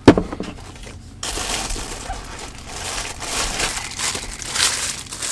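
Packaging of a new cordless inline drill being handled and opened: a sharp click at the start, then continuous crinkling and rustling of the box and wrapping.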